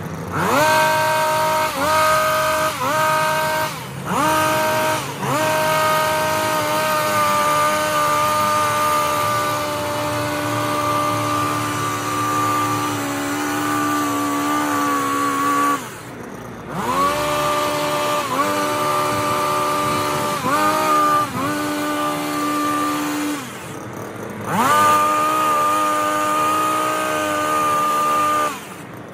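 Stihl HS 82 T two-stroke petrol hedge trimmer running at high revs as it cuts. The engine is throttled up and down again and again, with short drops toward idle a few times between passes.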